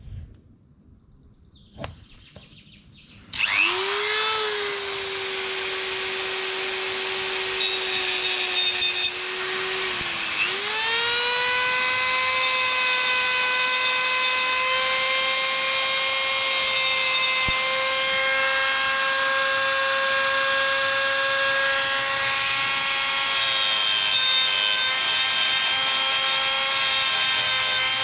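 A few handling clicks, then a Dremel 3000 rotary tool starts about three seconds in, its whine rising to speed and holding steady and high-pitched. Its cut-off disc grinds into the chainsaw's steel bar stud. Around ten seconds in the pitch dips briefly, then settles a little higher for the rest of the cut.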